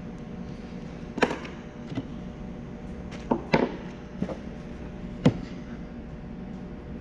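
A few sharp knocks and clicks of small hand tools being put down and picked up on a wooden worktable, four in all, two of them close together midway, over a steady room hum.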